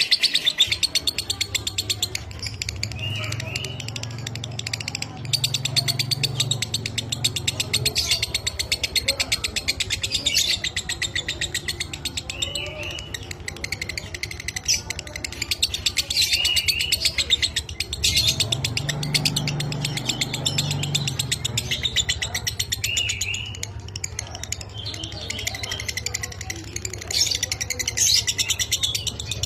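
Lovebird ngekek: a long, fast, dry chattering trill of rapid repeated notes that runs without a break, with short upward-bending chirps over it every few seconds. A low hum swells underneath now and then.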